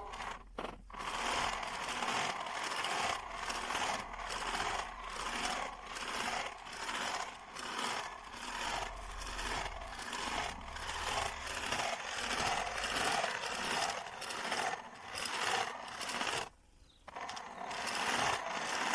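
Portable home sewing machine running under foot-pedal control, its mechanism going in a quick rhythmic chatter that stops briefly near the end, then starts again.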